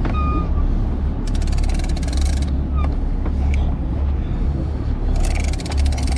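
Big-game fishing reel cranked in two spells of fast clicking while the line is pumped and wound in on a heavy tuna, over the steady low drone of the boat's engine. A few short squeaks come in near the start.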